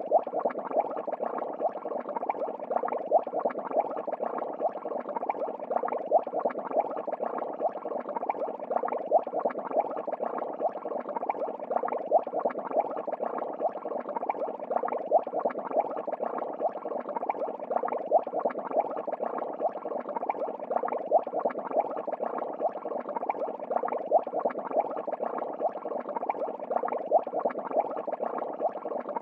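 Steady bubbling and water noise of an aquarium, with a brief dip about every three seconds.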